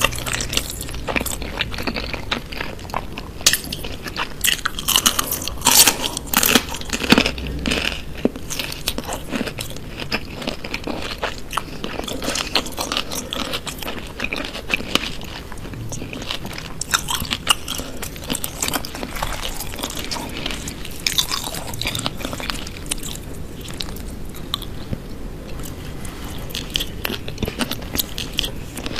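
Close-miked eating of raw vegetables in peanut sauce: a run of crisp, crunching bites and chewing, irregular and unbroken, with the loudest crunches about four to eight seconds in.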